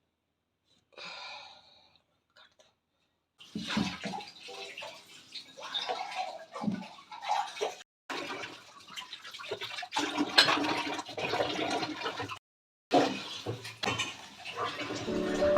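Water running from a tap as things are rinsed and handled, with small knocks and clatter, in several short stretches with abrupt breaks between them.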